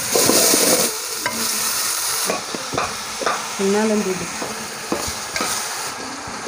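Raw chicken pieces going into a hot pan of onion-tomato masala. They sizzle loudly for the first second, then keep frying with a steadier sizzle while a spoon stirs and clicks against the pan.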